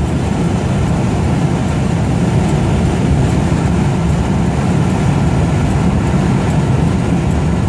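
Steady low rumble of driving noise inside the cabin of a 1979 Buick Regal V8 cruising on the freeway at a little over 75 mph, close to the top of its 85 mph speedometer.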